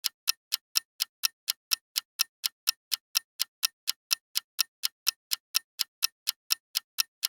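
Countdown timer sound effect ticking steadily, about four sharp, even clicks a second with silence between them: the time given to answer a quiz question.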